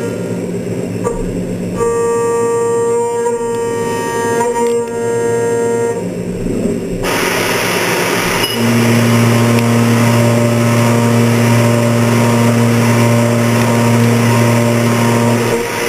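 CNC mill's indexable end mill cutting steel at high spindle speed: a steady tonal whine. About seven seconds in it changes to a louder, noisier cutting sound over a steady low hum.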